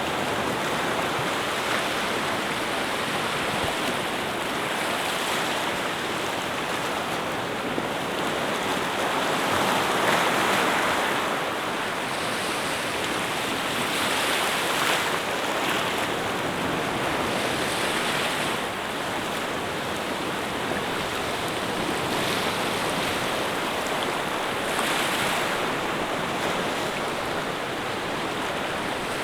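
Sea waves washing on a shore: a steady rush of surf that swells louder every few seconds as waves break.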